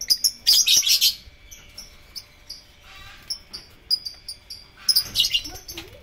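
A flock of lovebirds chirping: sharp, high chirps, with dense chattering bursts about half a second in and again near five seconds in, and scattered single chirps between.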